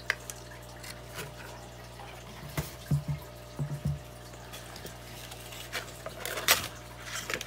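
Unpacking sounds: a cardboard box insert and a plastic power adapter with its cord are handled and set down on a cloth-covered table. There are scattered light taps and clicks, with a small cluster about three seconds in and the sharpest click about six and a half seconds in.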